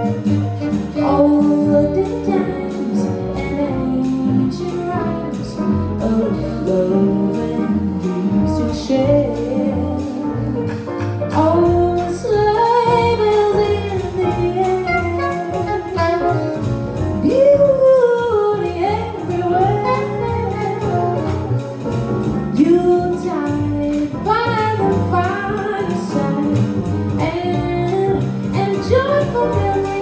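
Live jazz combo: a woman singing a melody over piano, double bass and drums, with alto saxophone and trumpet.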